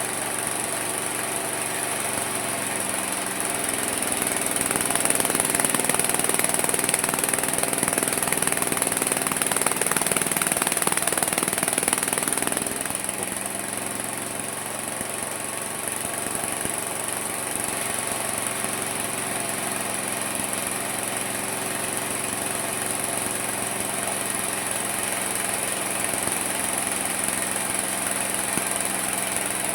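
Homemade mini sawmill running, its motor a steady drone. From about three seconds in it grows louder and rougher and its pitch sags as the saw blade cuts into the wood under load. About twelve seconds in the cut ends, the pitch picks back up and it runs on steadily.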